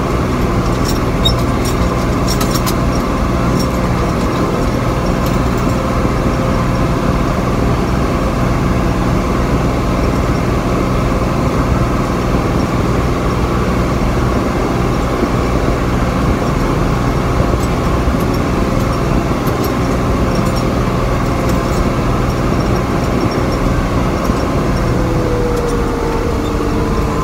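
Tractor engine running at a steady speed, heard from inside the cab as a constant drone. A few light rattles come in the first seconds, and a faint whine dips slightly in pitch near the end.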